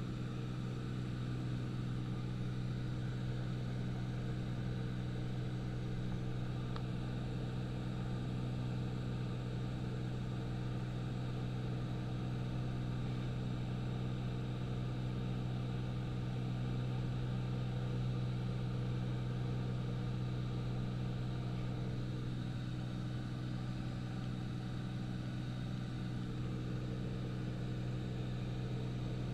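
Steady drone of a high-wing light aircraft's engine and propeller in level flight: a low hum with evenly spaced overtones that holds one pitch and level throughout.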